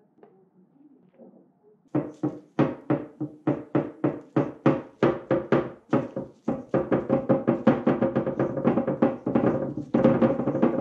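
Background music with a steady, quick beat that comes in about two seconds in.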